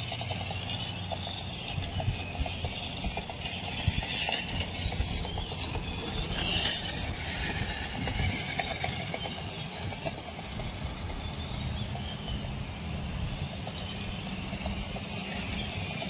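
Small stock electric motor and gearbox of a WPL D42 RC van whining as the van drives over asphalt. The whine wavers and swells briefly about six and a half seconds in, over a steady low outdoor rumble.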